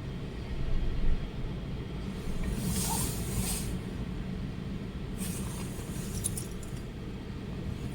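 Storm wind buffeting the microphone as a steady low rumble, with two brief hissing surges about a third and two thirds of the way through.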